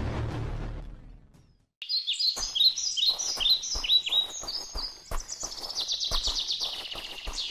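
Birds chirping, a run of short falling chirps that turns into a fast trill, over scattered light taps. Before them, the tail of a deep booming sound fades out in the first second and a half, followed by a brief silence.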